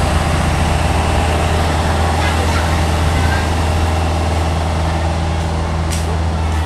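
Hitachi ZX48U mini excavator's diesel engine running steadily with a constant low hum while the hydraulic boom lifts the bucket. A single sharp click about six seconds in.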